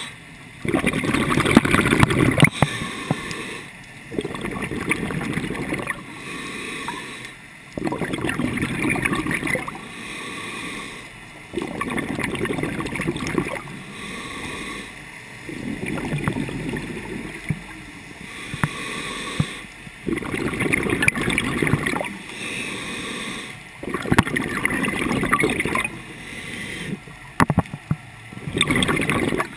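Scuba diver breathing through a regulator underwater: a gurgling rush of exhaled bubbles every three to four seconds, with quieter gaps between breaths.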